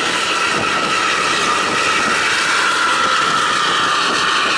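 Loud aftermarket bus exhaust at speed on a highway: a steady roar with a jet-like whine that drifts slightly in pitch.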